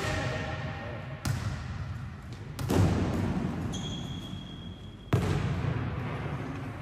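Volleyballs smacking in a sports hall during training: four sharp hits at uneven intervals, each followed by a long hall echo.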